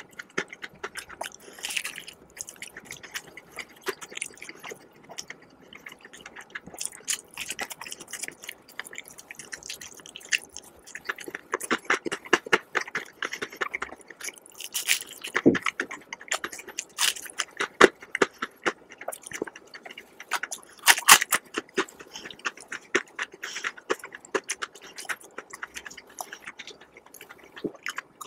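Close-miked chewing of crispy fried chicken, a dense irregular run of crackly crunches and mouth clicks.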